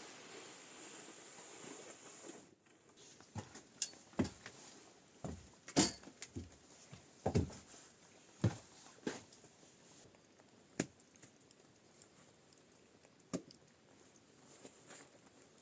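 Steady hiss that breaks off abruptly, followed by about a dozen scattered light knocks and clicks of objects being handled, irregularly spaced with quiet between them.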